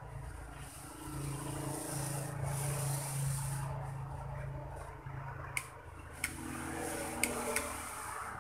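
Transformer soldering gun humming with its trigger held while soldering on a circuit board, the hum strongest in the first half with a faint hiss over it. A few sharp clicks come in the second half.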